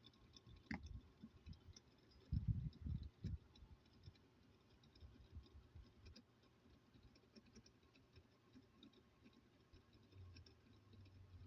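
Faint handling noises from a small charger being taken apart: scattered light clicks, with a short cluster of soft low knocks about two and a half seconds in.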